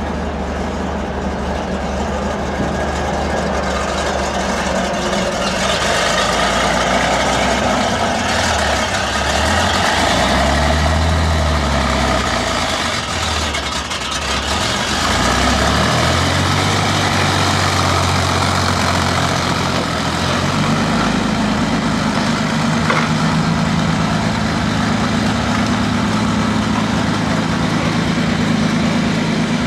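Sturmgeschütz assault gun's engine running as the tracked vehicle pulls away. The engine revs up and falls back twice near the middle, then holds a steady, slightly higher note.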